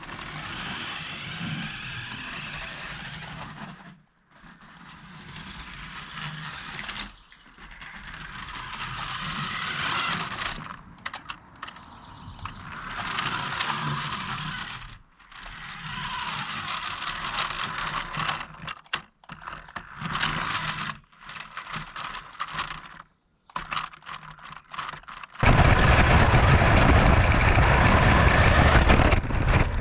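A DEERC DE67 1:14 RC crawler truck's small electric motor and gears whirring and rattling as it drives, in several short stretches broken by abrupt cuts. A much louder, low rumbling noise starts about 25 seconds in.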